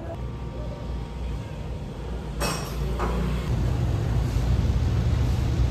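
Low rumble of a vehicle engine, growing louder and steadier from about halfway through, with two short clinks a little before.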